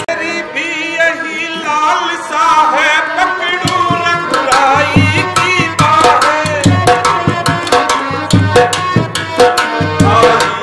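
Indian folk music: hand drums played in a steady rhythm under a wavering melody line. The drumming is light at first and comes in with deep, regular strokes about four seconds in.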